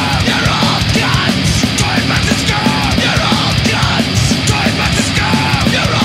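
Loud hardcore punk/metal band recording: distorted electric guitars and bass over dense, hard-hit drumming.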